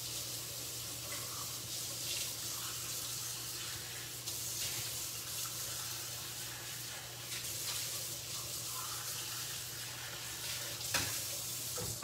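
Kitchen tap running steadily into the sink. Near the end there is a brief clatter.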